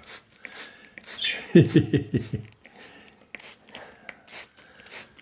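A hand spray bottle misting water in a string of short hissy squirts onto pet cockatiels, with soft chirps from the birds. A brief low pulsing vocal sound comes about a second and a half in.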